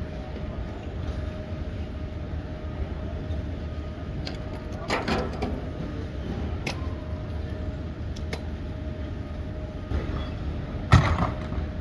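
Airport baggage carousel running with suitcases on it: a steady low rumble with a faint steady hum, broken by a few clunks and knocks, the loudest just before the end.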